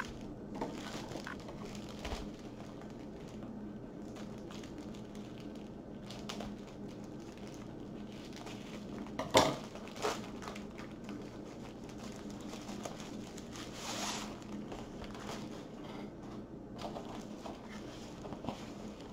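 Padded plastic mailer rustling and crinkling as it is handled and opened, with a couple of sharper crackles about nine and ten seconds in.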